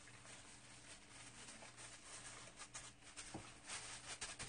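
Kitchen scissors snipping through napa cabbage kimchi: a few faint, short clicks, mostly in the second half, over a low steady hum.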